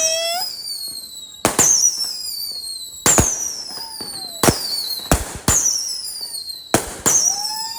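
Consumer fireworks going off: a string of about six sharp bangs at irregular spacing, each trailed by a high falling whine.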